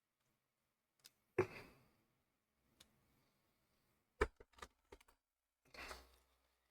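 Small clamps being clipped onto glued plastic model parts: a sharp click with a brief rustle about a second and a half in, another sharp click near four seconds followed by a few lighter clicks, and a soft handling rustle near the end.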